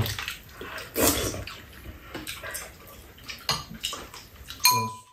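Close-up eating sounds: wet chewing and slurping of fried rice and soup, with metal spoons scraping and tapping against the bowls.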